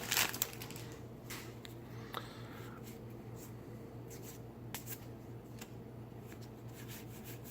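Magic: The Gathering cards being handled and flipped through by hand: scattered faint soft snaps and rubs of card stock, over a steady low hum.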